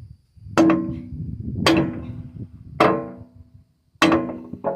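Sledgehammer striking a steel pin four times, about a second apart, each blow a sharp metallic clang with a short ring. The blows drive the pin back into place through the hydraulic ram's mounting holes.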